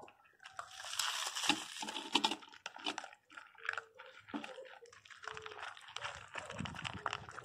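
Small dogs eating dry kibble from a bowl: a run of quick, irregular crunches and chewing as several dogs bite into the pellets.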